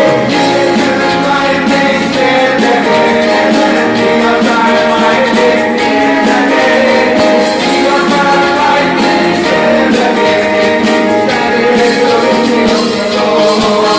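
A live band playing a song, with keyboard and a steady percussion beat under singing voices.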